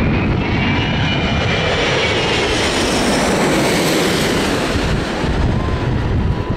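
Airbus A380 jet engines on final approach passing low overhead: loud, steady engine noise with a high whine that drifts down in pitch over the first two seconds, sharpest about four seconds in as the plane goes directly over, then easing off as it moves away toward the runway.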